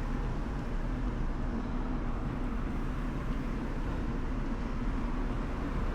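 Steady wind rush and road rumble on the microphone of a bicycle-mounted action camera while riding.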